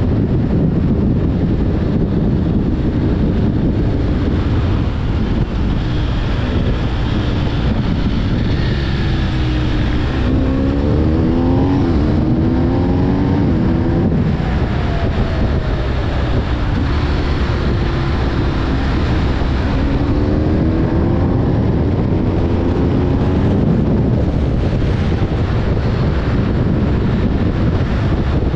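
BMW R 1250 GS's boxer-twin engine under heavy wind noise on the microphone while riding. The engine note climbs in steps as it accelerates through the gears a little over a third of the way in, and again about three-quarters of the way through.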